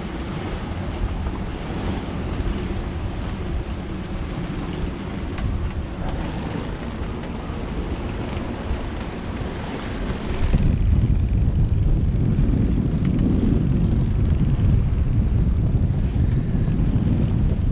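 Strong wind buffeting the microphone aboard a yacht under way, mixed with the rush of water. About ten seconds in the sound changes suddenly to a heavier, deeper rumble.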